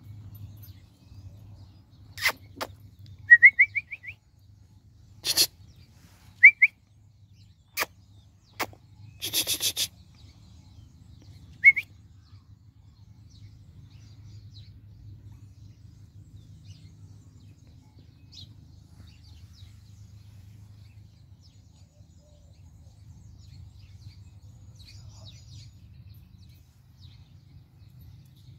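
Border collie puppies playing, giving a few short, high, rising squeaks along with several sharp clicks, all within the first dozen seconds. After that only a low, steady rumble remains.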